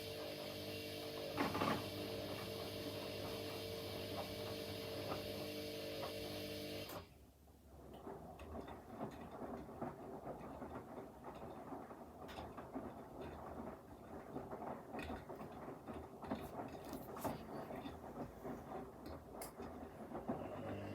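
Washing machine running mid-cycle. A steady motor hum with several held tones stops abruptly about seven seconds in. It gives way to irregular soft clicks and rustles as the drum turns the load.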